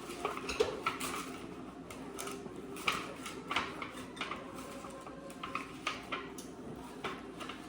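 Irregular small clicks, taps and scrapes of hands and butter working around cake pans while greasing them.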